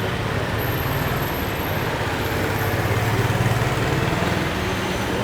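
Steady low engine rumble that swells slightly a few seconds in.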